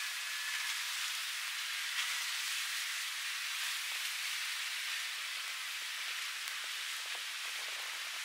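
Steady rain falling, an even hiss with no engine or voice in it.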